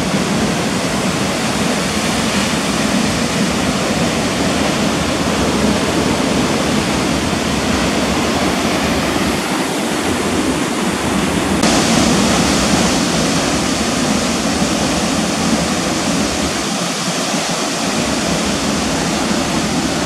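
Steady rush of Haew Narok Falls, a waterfall about 60 metres high, close by. The rush turns brighter and more hissy a little past halfway.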